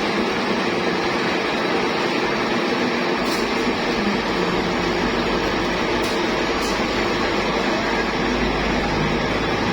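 Metal lathe running with a steady mechanical hum, with a few faint ticks and a deeper rumble joining about halfway through.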